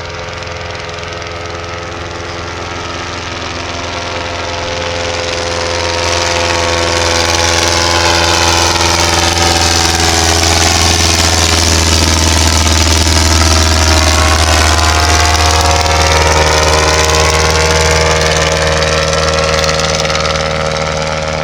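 Piston engine of a Bristol Boxkite replica biplane flying past with a steady drone. It swells over the first several seconds, is loudest a little past the middle, then eases slightly.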